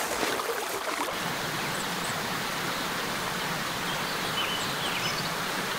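Steady outdoor rushing noise, with a few faint, short high chirps from small birds.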